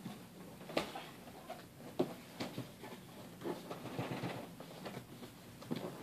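Large cardboard box being tipped, shifted and set down on carpet: scattered knocks and scrapes with scratchy rustling of cardboard.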